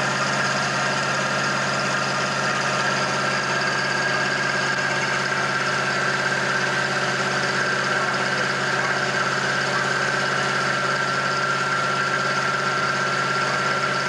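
Fire engine running steadily, its pump supplying the deck gun's water stream, with a steady whine over the engine's low drone.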